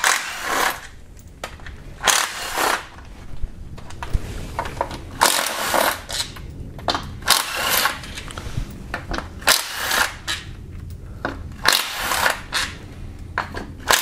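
Cordless power ratchet running in repeated short bursts, spinning out the automatic transmission oil pan bolts one after another.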